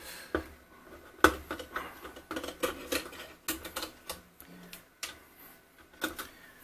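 Irregular light clicks and taps as a PTFE tube is handled and worked through the slot in a small 3D printer's aluminium case.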